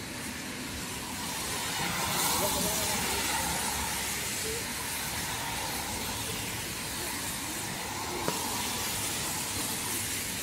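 Steady hissing and sizzling from a red-hot street-food grill as skewers of meat and squid cook on its wire rack, a little louder from about two seconds in, with one sharp click near the eight-second mark.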